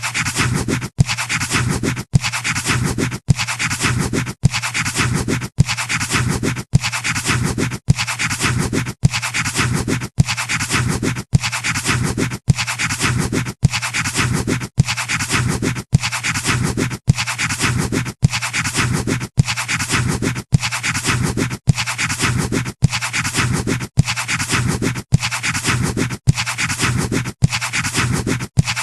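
Pencil scratching on paper, a short sound-effect clip looped over and over with a brief gap about every second, and a steady low hum underneath.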